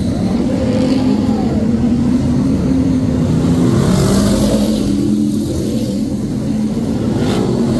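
Brisca F1 stock cars racing on an oval, several V8 engines running together. Their pitch shifts up and down as the pack lifts and accelerates through the bend.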